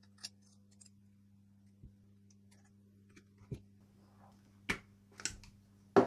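A few light, scattered clicks and taps of small metal parts being handled as a reinforced cutting disc is fitted onto its mandrel for a Dremel rotary tool, over a steady low hum.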